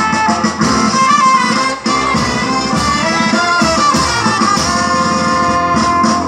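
Loud band dance music, led by a wind-instrument melody over bass and percussion.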